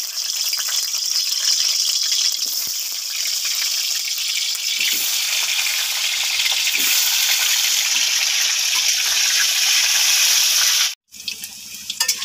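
Potato chunks coated in salt and turmeric sizzling loudly in hot mustard oil in a metal kadai, just after being dropped in. The sizzle breaks off about eleven seconds in and comes back quieter.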